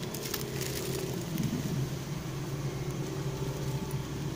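An engine running steadily at low speed, a low even hum, with faint crinkling of a plastic parcel bag being handled.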